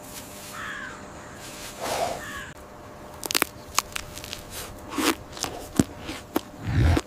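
Sharp crunches of teeth biting into a raw, dirt-covered root: a quiet rustle of dirt being brushed off at first, then a string of crisp crunches from about three seconds in, with a low thud near the end.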